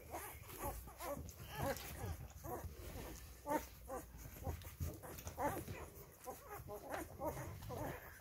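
Five-day-old Rhodesian Ridgeback puppies squeaking and whimpering while they nurse, many short high calls one after another.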